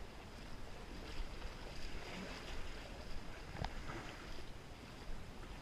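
Steady rushing noise of wind and water, with wind buffeting the microphone into a low rumble.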